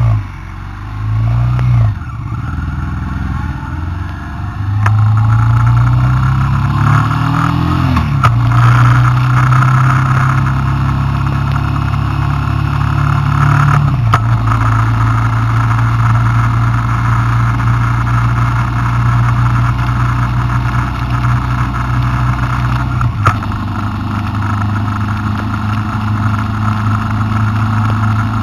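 A road vehicle's engine revving briefly twice, then accelerating through the gears, its pitch climbing and dropping at each shift about 8, 14 and 23 seconds in, before running steadily at cruising speed with wind and road rush.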